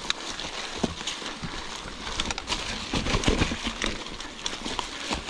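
Scattered clicks and knocks of a mountain bike going over a rocky trail, with a heavier clatter about three seconds in.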